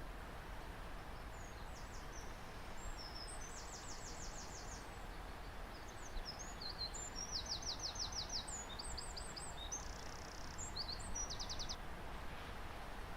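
A small songbird singing a string of high, rapid trills and chirps, in several phrases, over a steady background hiss of outdoor ambience.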